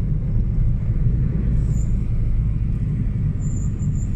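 Steady low rumble of a car driving along a winding road, heard from inside the cabin: engine and road noise.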